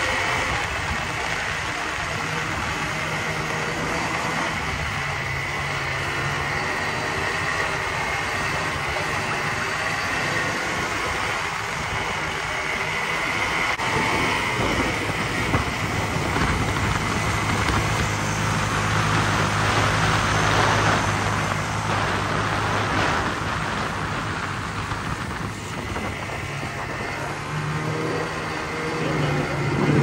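Snowmobile engine running while under way, its note changing as the speed varies, over a steady rush of wind and track noise.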